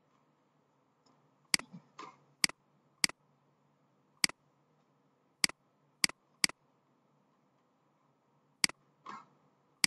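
Computer mouse clicking: about nine sharp single clicks at uneven intervals, a few coming in quick succession, over a faint steady background hum.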